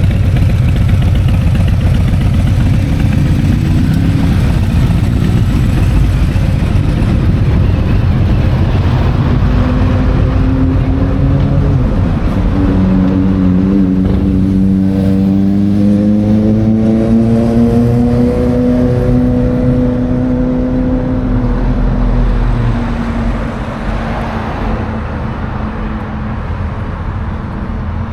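Motorbike and vehicle engines running close by in steady traffic. About midway an engine's pitch climbs and then falls away as it revs or passes, and the sound eases off a little near the end.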